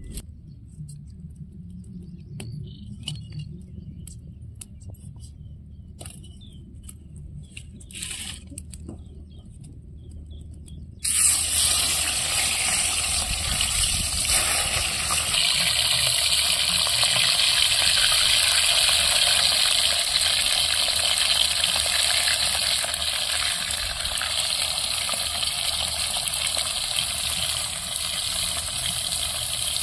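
Dry twigs clicking and crackling as they are handled, then, about a third of the way in, a sudden loud sizzle as pieces of shol (snakehead) fish go into hot oil in a wok, frying steadily from then on.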